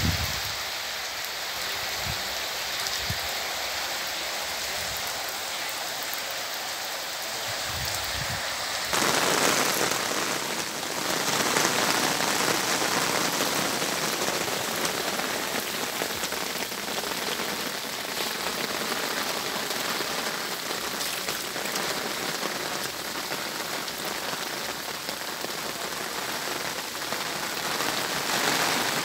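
Steady rain falling on vegetation and bare earth, an even hiss that grows louder and fuller about nine seconds in. A few dull thumps come in the first several seconds.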